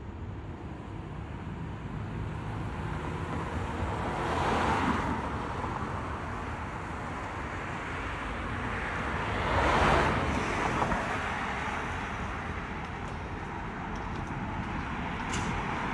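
Two cars driving past on the street about five seconds apart, each a swell of tyre and engine noise that rises and fades, over a low rumble of wind on the microphone.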